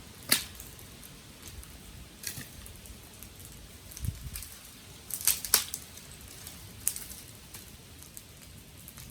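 Burning garden sticks crackling in a wood fire: scattered sharp pops and snaps over a faint steady hiss, loudest in a quick cluster about five seconds in, with a soft low thud just before it.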